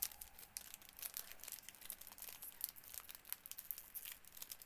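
Hockey card pack wrapper crinkling and crackling as it is handled and pulled at to tear it open, with many quick sharp crackles.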